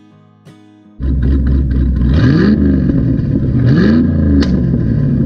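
Car engine starting up loudly and abruptly about a second in and revving twice, the pitch rising each time, with a sharp click just after the second rev. Acoustic guitar music plays before the engine comes in.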